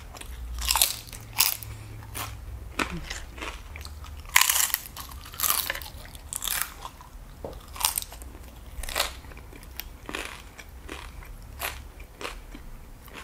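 Tortilla chips topped with nacho cheese being bitten and chewed: irregular crunches a few times a second, the loudest about four and a half seconds in.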